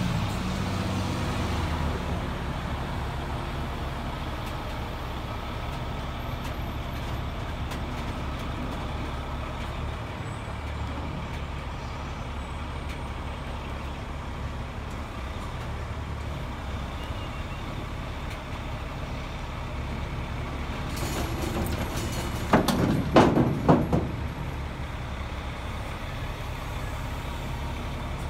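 Heavy truck engine running steadily at idle. About 21 seconds in there is a hiss, followed by a short run of four loud puffs.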